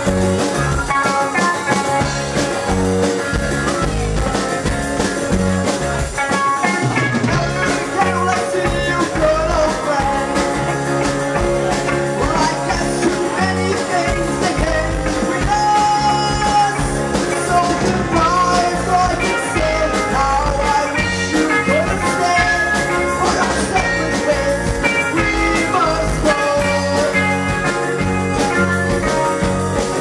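Live band playing a song on electric guitars, upright bass and drums, loud and steady throughout.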